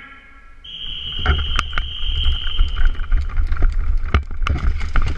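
A long, steady, high-pitched signal tone starts just under a second in and holds for about two seconds. It is followed by a player moving fast in airsoft gear: rapid knocks and clicks of footsteps and rattling kit over heavy rumble on the body-worn camera's microphone.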